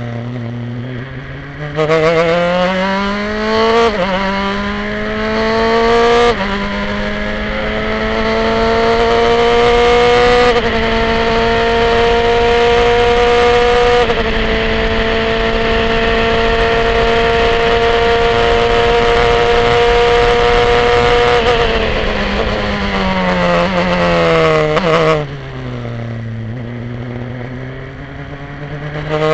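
Formula 3 car's four-cylinder racing engine heard onboard, accelerating hard out of a slow corner and climbing through the gears, the pitch dropping at each of several upshifts. It then holds high revs at full speed for about eight seconds before a run of downshifts under braking brings the pitch down low, and it starts to rise again at the very end.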